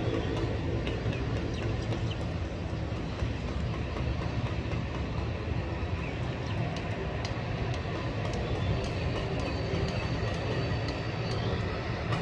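Engines of a distant twin-engine wide-body jet airliner taxiing slowly on the runway, a steady low rumble.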